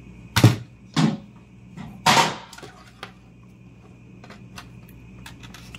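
Knocks and clatter from handling the opened Tektronix oscilloscope's plastic front panel and circuit board on a wooden desk, with three loud knocks in the first two seconds or so. Light clicks follow as the power cord is fitted.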